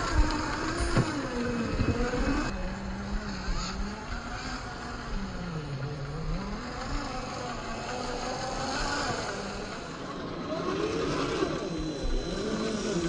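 Traxxas TRX-4 Defender RC crawler's electric motor and geared drivetrain whining, the pitch rising and falling with the throttle as it crawls over rock. A few sharp knocks in the first couple of seconds, of the tyres and chassis hitting rock.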